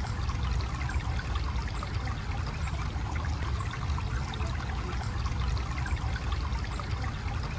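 Running water, a small stream flowing steadily, with a low rumble underneath.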